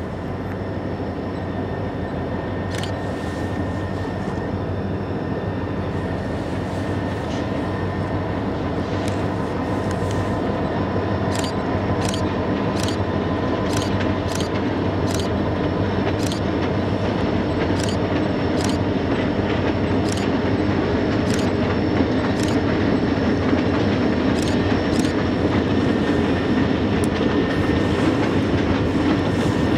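Diesel freight locomotives approaching, their engines droning and growing steadily louder, with a string of sharp wheel clicks over the rail joints.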